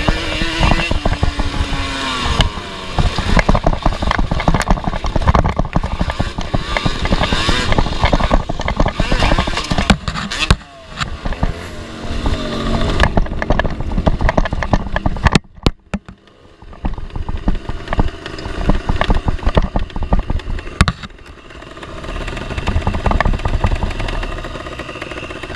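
Yamaha Banshee two-stroke twin engine of a racing lawnmower revving hard, rising in pitch under throttle, with the chassis rattling and clattering over rough dirt. The engine drops off sharply for a moment about fifteen seconds in, then picks up again.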